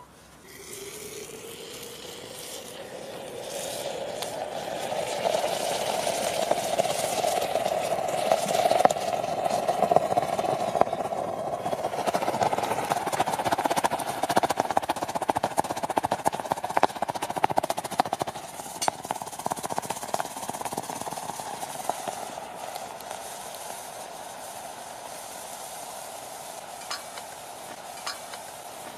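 Molten metal hitting the wet flesh of a hollowed-out watermelon: a dense sizzling and bubbling full of small crackles, with a hum that rises in pitch in the first seconds. It builds for several seconds, stays strong for a while, then slowly dies down.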